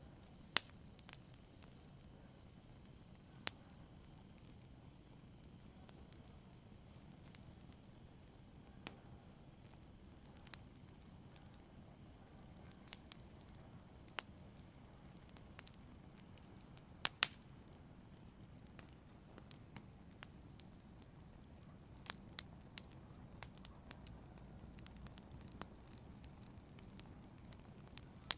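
Wood fire in a fireplace crackling: irregular sharp pops and snaps every second or few seconds, the loudest about two-thirds of the way through, over a faint steady low hiss of the flames.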